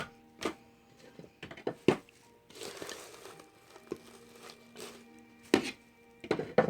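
Small objects knocking and rustling as someone rummages through tools by hand, with several sharp knocks and a stretch of rustling, over quiet background music holding a steady chord.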